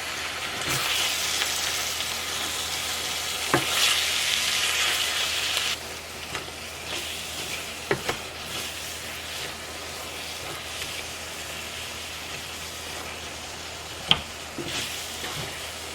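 Thick sloppy joe mixture sizzling in a cast iron pan as it is stirred, louder for the first six seconds and then quieter, with a few sharp clicks along the way.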